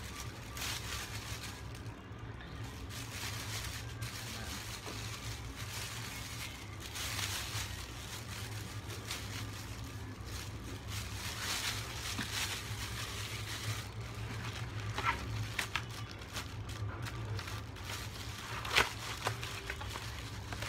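Plastic packaging being handled and rustled, with scattered crinkles and a few sharp clicks, the sharpest near the end, over a steady low hum.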